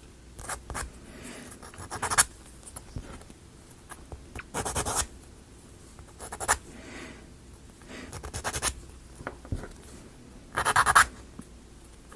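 Sandpaper rubbed in short scratchy strokes on small laser-cut plywood model pieces, smoothing their edges; the loudest bursts come about halfway through and near the end.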